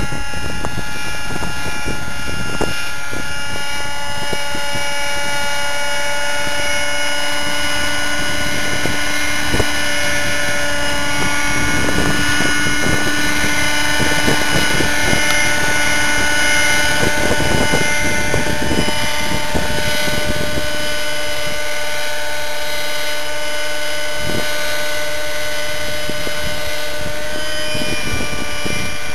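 T-Rex 600 Nitro Pro RC helicopter in flight: its O.S. 50 Hyper nitro glow engine, fitted with a Hatori performance muffler, runs steadily at flying speed with its rotors, a high whine whose pitch shifts slightly now and then.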